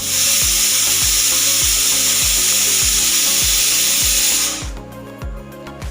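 Pressure cooker whistle blowing: a loud hissing jet of steam that starts suddenly and stops after about four and a half seconds, as built-up pressure is released. Background music with a steady beat runs underneath.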